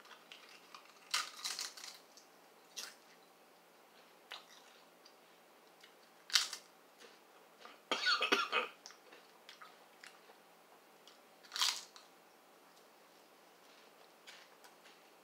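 Crisp Lay's potato chip bitten and chewed: several short, sharp crunches spread through, the loudest cluster about eight seconds in, with quiet chewing between.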